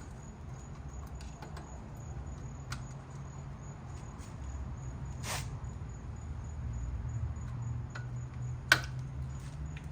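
Scattered small metal clicks and scrapes of a hand tool backing out the rusty screws of a van's headlight retaining frame, with a short scraping hiss about five seconds in and one sharp, loud click near the end, over a steady low hum.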